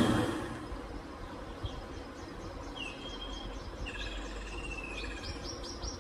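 Bird chirps in the soundtrack of a nature video, heard through a TV's speakers: a brief swell of noise at the very start, then gliding chirps from about three seconds in and a quick run of repeated high chirps near the end.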